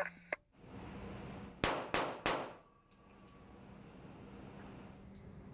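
Three sharp bangs about a third of a second apart, each ringing briefly, followed by a faint steady hum.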